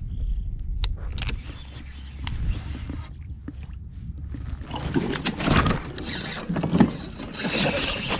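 Wind rumbling on the microphone with a few sharp clicks from rod and reel handling. From about five seconds in it turns louder and busier as a bass is hooked on a flipped bait and fights at the kayak.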